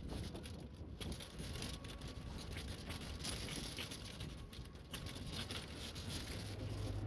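Outdoor street ambience of many people walking along a road, with scattered pattering and rattling and vehicle noise in the background; a steady low hum comes in near the end.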